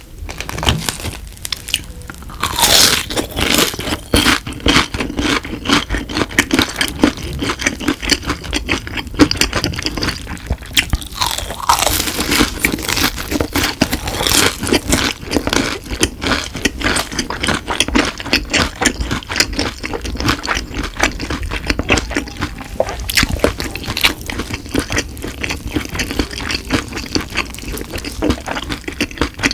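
Close-miked crunching and chewing of a breaded, deep-fried mozzarella cheese stick, with many crisp crunches in quick succession.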